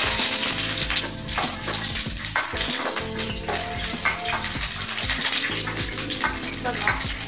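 Cashews and raisins frying in ghee in a stainless steel pan, with a steady sizzle, while a metal spoon stirs them and scrapes and clicks against the pan.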